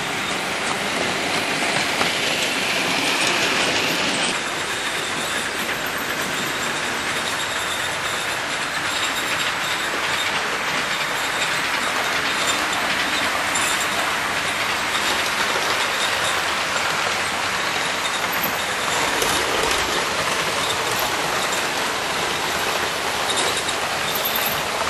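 Model diesel locomotive running on a model railway with a rake of coaches: a steady whir from the motor and wheels, with fine clicking over the rail joints.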